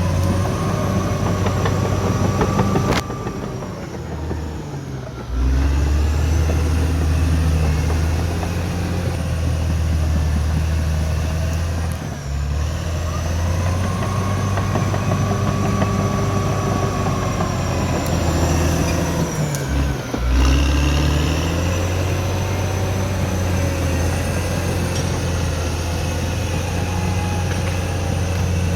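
CAT D6R XL bulldozer's diesel engine running under load. It drops back about three seconds in and again about two-thirds through, each time picking straight up again, with a whine that rises and falls over the engine note.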